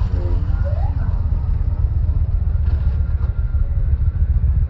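Sport motorcycle engine revving, with a couple of short rises in pitch in the first second, under a heavy low rumble.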